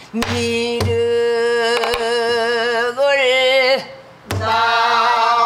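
Pansori singing in long held notes that waver at the end of a phrase, with a few strokes of a stick on a buk barrel drum. The voice breaks off briefly just before four seconds in, then comes back with a drum stroke.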